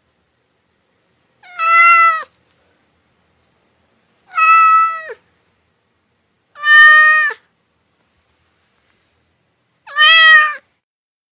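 A domestic cat meowing four times, a few seconds apart; each meow lasts most of a second and drops in pitch at its end.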